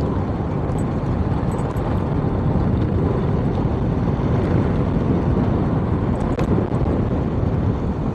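Motorcycle being ridden: a steady, dense rumble of engine and wind noise, with no pitch changes.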